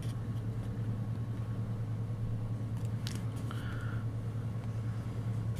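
A steady low hum, with faint soft rustles and a light tick of a planner sticker sheet being handled about three seconds in.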